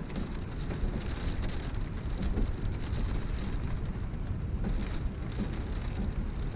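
Wind-driven rain beating on a window pane, a steady hiss with scattered ticks of drops. A deep rumble of gusting wind comes in at the start and stays under the rain.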